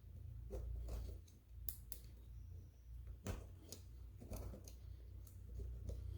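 Scattered faint clicks and light scraping of hands working the excess lift cable into a garage door cable drum, over a steady low hum.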